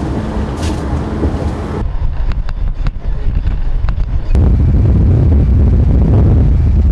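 Motorcycle riding at highway speed: wind rumbling and buffeting on the microphone over engine and road noise. The sound changes abruptly twice as the footage cuts between shots, and grows louder and heavier in the low end about four seconds in.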